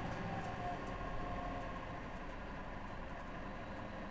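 Mercedes-Benz Citaro C2 city bus engine idling steadily while the bus stands still.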